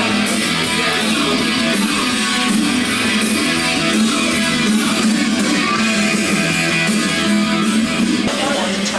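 Music with strummed guitar, playing steadily.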